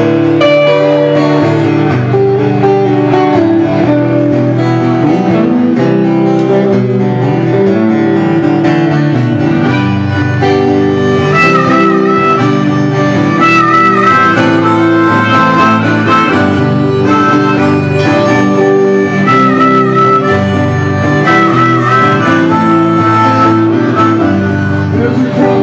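Live rock band playing an instrumental passage: acoustic and electric guitars strumming together, with a harmonica solo over them. The harmonica's bent notes come to the fore about halfway through.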